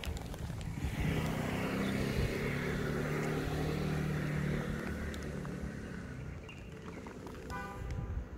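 A motor vehicle passing: a steady engine hum with tyre noise that swells about a second in and fades away over the next few seconds. A short high call near the end.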